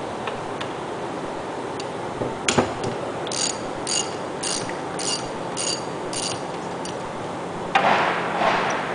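Socket ratchet wrench clicking as it backs out the 3/4 inch bolt that holds a centrifugal pump's stuffing box in place. There is one sharp click, then six evenly spaced metallic clicks about two a second, and a brief rattle near the end.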